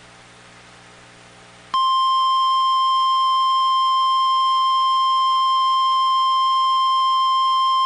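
NOAA Weather Radio 1050 Hz warning alarm tone: a loud, steady single-pitched tone that comes on abruptly about two seconds in, after a faint hum on the channel. It is the alert signal that announces a new weather alert.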